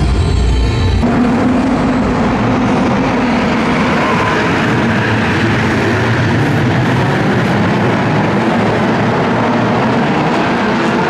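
Several drift cars sliding together, engines held at high revs amid a loud, steady din of engine and tyre noise.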